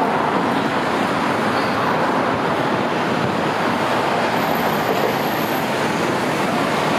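Steady din of busy city street traffic, an even rumble and hiss with no single event standing out.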